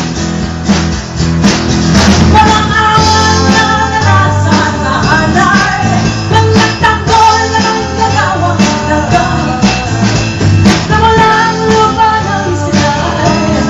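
Live band music: women singing a pop-rock song into microphones over acoustic guitar and drums, loud and continuous.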